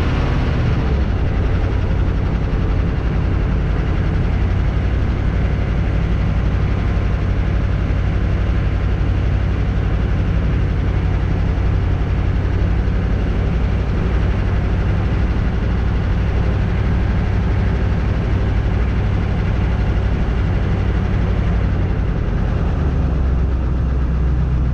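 HMMWV's diesel V8 engine and drivetrain running steadily while driving, heard from inside the cab as a loud, steady low drone. The low note shifts slightly near the end.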